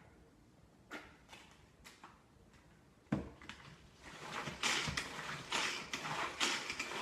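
A few light plastic clicks and knocks, then from about four seconds in the repeated whirring strokes of a Tupperware Power Chef pull-cord chopper being pulled to whip eggs, about two pulls a second.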